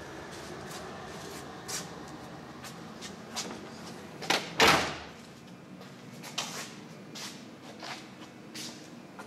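Mazda Tribute's rear liftgate slamming shut once, about four and a half seconds in, just after a lighter click; a few faint knocks before and after.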